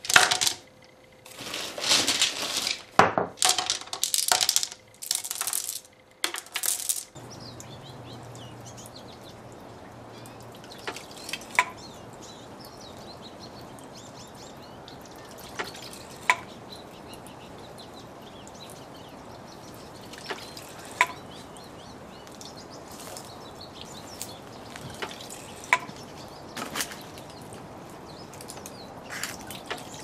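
Smooth river pebbles clattering as they are dropped by hand into the fountain's wooden basin for about the first seven seconds. Then water trickles steadily while the bamboo shishi-odoshi (deer scarer) tips and clacks against its stone striker about every five seconds, each sharp knock with a lighter tap just before it.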